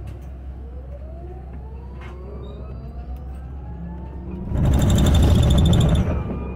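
Olectra K9 electric bus heard from inside the cabin: the drive motor's whine rises in pitch as the bus gathers speed, over a steady low hum. About four and a half seconds in, a much louder sound of about a second and a half covers it, then stops.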